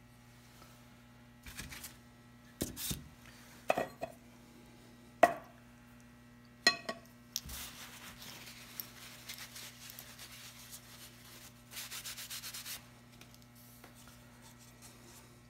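Paintbrush, varnish tin and paper cup handled on a wooden workbench: five or six sharp taps and knocks over the first seven seconds, then several seconds of a paper towel rubbing and rustling, ending in a quick run of short scrubbing strokes.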